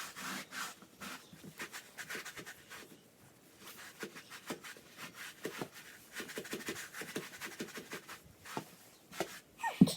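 Baby wipes rubbing and scrubbing on a surface in short irregular strokes, with light rustles and small taps, and a sharp thump just before the end.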